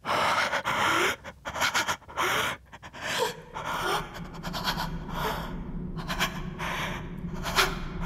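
A person gasping and panting for breath in short, ragged breaths. A low steady drone comes in underneath about halfway through.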